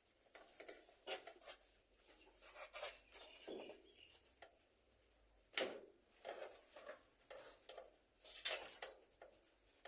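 Irregular rustling and scraping noises, with a single sharp knock about five and a half seconds in.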